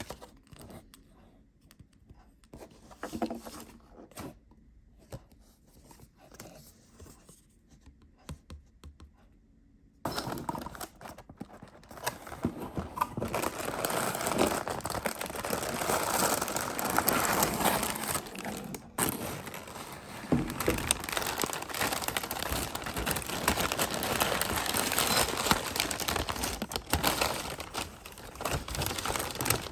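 Plastic or paper packaging being handled and crinkled, as when unwrapping parcels. Only faint small handling clicks at first, then steady continuous crinkling starts about a third of the way in.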